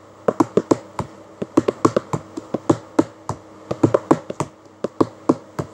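Hand percussion between sung lines of an Iraqi folk song: sharp claps or hand-drum taps, several a second in uneven clusters, over a faint steady hum.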